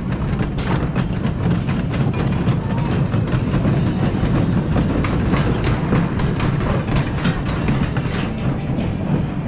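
Gravity Group Timberliner train on a wooden roller coaster rolling into the station at the end of the ride: a steady low rumble of the wheels on the wooden track, with a rapid scatter of clicks and clacks.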